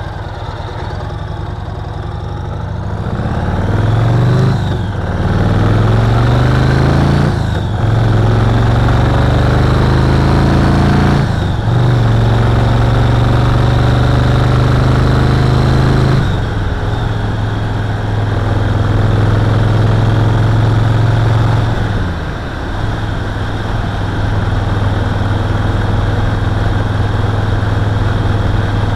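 Yamaha Roadliner's V-twin engine pulling away and accelerating up through the gears: the engine note climbs in each gear and drops back at four upshifts in the first half, then runs steadily at cruising speed, with a brief easing of the throttle about three-quarters of the way through.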